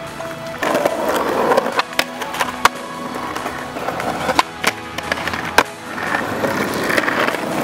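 Skateboard wheels rolling over rough concrete, the noise swelling and fading, with several sharp clacks of the board against the ground.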